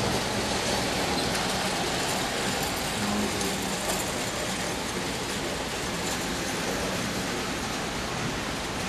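Model trains running on an O-gauge layout: a steady noise of wheels and motors on metal three-rail track, with a faint hum.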